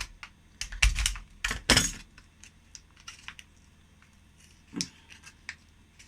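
Small hard objects being handled on a workbench: a quick run of clicks and knocks in the first two seconds, then scattered light ticks and one duller knock near the end.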